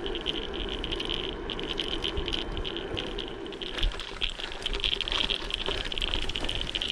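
Mountain bike rolling along a rough gravel track: tyres crunching over loose stones and the bike rattling continuously, with many small knocks over the bumps.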